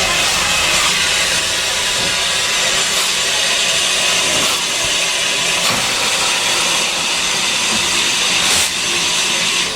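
Steam locomotive giving off a loud, steady hiss of steam, with a few faint clicks through it.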